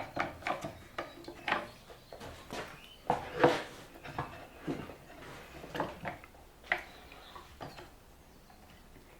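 Irregular knocks, clicks and clatter of wooden and metal workshop parts being handled and set in place, such as a router table fence being put on and clamped down. The knocks come in ones and twos, busiest in the first half, and thin out towards the end.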